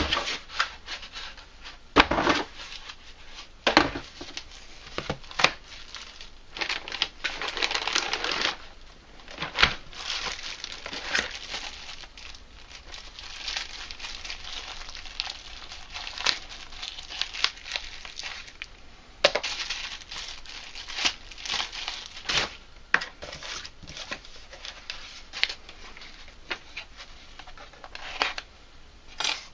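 Plastic bags crinkling and cardboard packaging rustling and tearing as a power-tool kit is unpacked by hand, with frequent irregular clicks and knocks.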